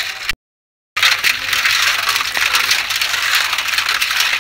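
Freshwater snails being washed by hand in a basin of water: a dense clatter of shells knocking and rubbing together, mixed with water sloshing, starting after a short dropout near the start.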